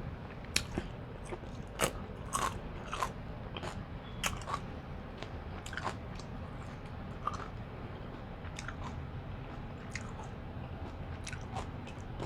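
Close-miked eating: irregular wet clicks and smacks of someone biting and chewing seafood boil food.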